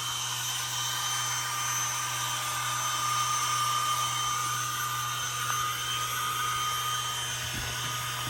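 A small electric motor whirring steadily, with a thin high whine over a low hum.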